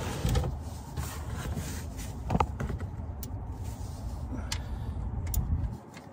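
A few light metal clicks and taps of a socket and ratchet being fitted on an oil drain plug to snug it up, over a low rumble that stops near the end.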